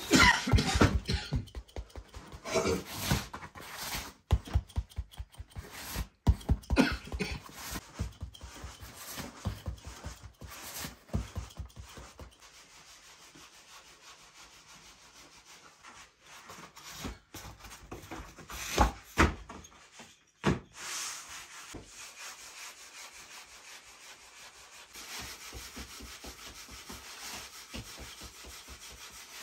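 Hands pressing, patting and rubbing rounds of flatbread dough on a cloth-covered wooden table. A run of quick taps and knocks fills the first dozen seconds, then it turns to quieter rubbing with a few louder knocks.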